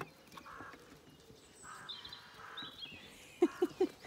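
Crows cawing four times with harsh calls, with a small bird's faint chirps in the middle. Near the end come three short, louder low sounds.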